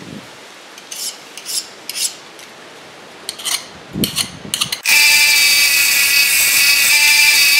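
Light metal clinks and scrapes of tongs and poker in a charcoal forge, about a dozen short sharp clicks over the first five seconds. Then a loud, steady, high-pitched hum made of several held tones starts abruptly and continues.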